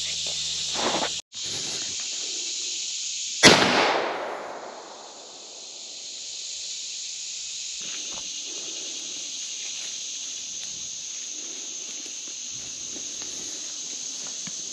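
A single gunshot about three and a half seconds in, echoing off through the woods for a second or two. A steady high drone of insects runs throughout.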